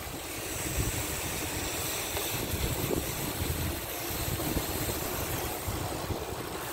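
Wind buffeting the microphone of a camera carried on a moving bicycle, with road noise: a low, uneven buffeting under a steady hiss.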